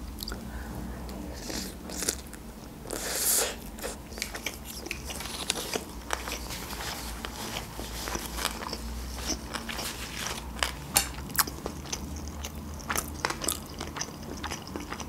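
Close-miked biting and chewing of a fried sushi roll soaked in instant-noodle broth, with many small wet crackling clicks. There is a louder crunch about three seconds in.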